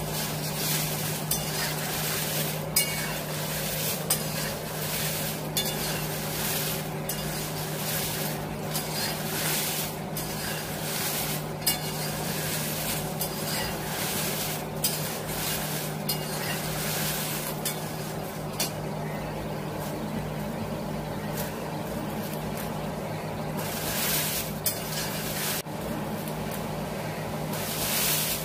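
Dried red chillies roasting in a little oil in a large metal kadhai, stirred and tossed with flat spatulas. The chillies rustle and sizzle steadily, and the spatulas knock and scrape against the pan every second or so, over a steady low hum.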